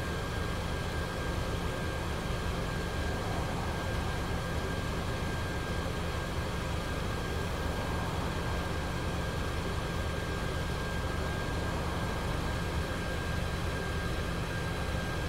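Scania E400 double-decker bus's diesel engine idling steadily, heard from the upper deck, with a thin steady whine over the low rumble.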